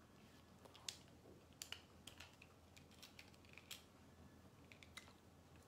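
Eyeglasses being taken off and handled close to the microphone: faint, irregular light clicks and taps, about a dozen, the sharpest about a second in.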